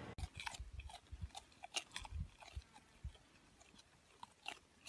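Alpaca chewing close to the microphone: faint, irregular crunching clicks, with a few low thumps in the first couple of seconds.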